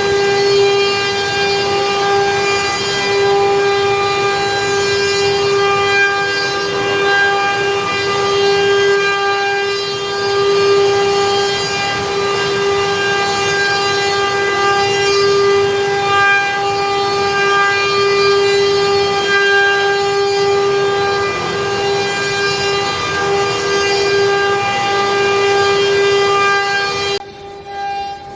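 4-axis CNC router spindle whining at a steady high pitch while it carves wood, with the whine wavering slightly as the cutter works; the sound drops away sharply near the end.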